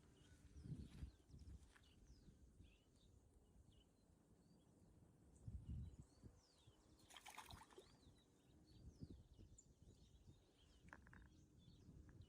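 Near silence: faint outdoor ambience with scattered small bird chirps and occasional low rumbles of wind on the microphone.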